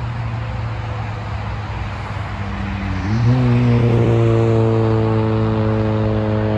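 Jet engines of a Boeing 777-300ER on final approach: a steady low rumble, then about three seconds in a deep droning hum with higher tones above it rises briefly in pitch, holds steady and gets louder.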